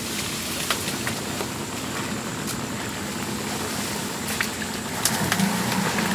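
A motor idling steadily, with scattered sharp clicks and snaps over it.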